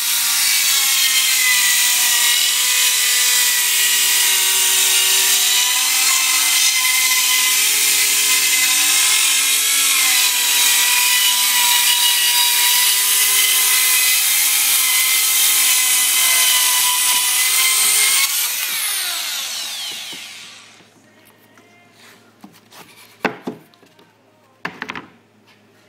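Rockwell VersaCut mini circular saw with a 4-amp motor ripping through half-inch plywood for about eighteen seconds, its whine wavering slightly under load, then winding down with a falling pitch. Two short knocks follow near the end.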